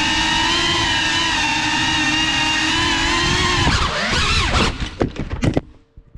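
GEPRC CineLog35 cinewhoop's brushless motors and ducted propellers whining at a steady pitch in flight, heard from on board. About three and a half seconds in the pitch surges up and down with several sharp knocks as the drone crashes and tumbles, and the motors cut off shortly before the end.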